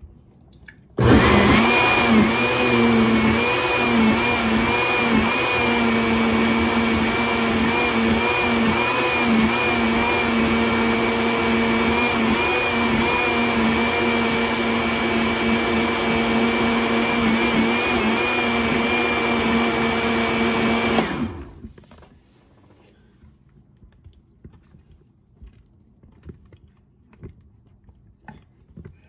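Countertop blender running at a steady pitch, blending a thick mix of frozen fruit and yogurt. It starts abruptly about a second in and stops about two-thirds of the way through, winding down. A few faint knocks follow.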